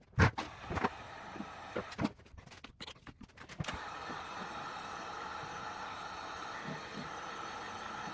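A few handling clicks and knocks, then a heat gun switched on about three and a half seconds in, its blower running with a steady whirring hiss for sticker removal.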